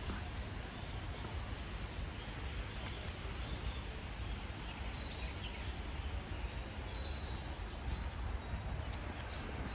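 Steady rainy city-street ambience: an even hiss with a low rumble of traffic, and a few faint bird chirps.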